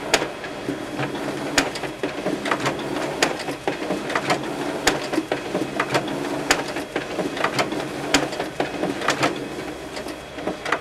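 Sharp multifunction copier scanning a stack of documents through its document feeder: a steady motor hum with frequent irregular clicks and ticks as the pages feed through.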